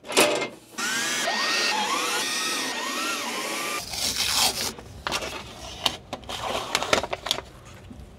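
A cordless drill runs for about three seconds, its motor pitch rising and falling as it drives the electrical panel cover's screws. It is followed by a series of clicks and knocks.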